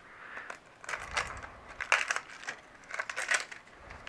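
Printed wrapper being peeled and crinkled off a plastic surprise egg by hand: irregular crinkling rustles with a few sharper crackles.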